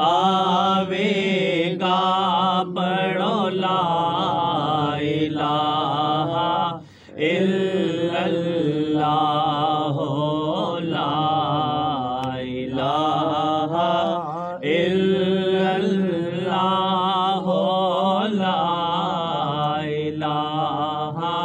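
Naat chanting: a voice intones the devotional phrase in long, wavering sung phrases, with brief breaths about 7 and 15 seconds in.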